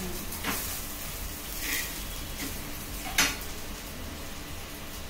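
Wheat adai frying in oil on a dosa tawa, sizzling steadily. A few light knocks of metal utensils sound over it, the loudest a sharp clink about three seconds in.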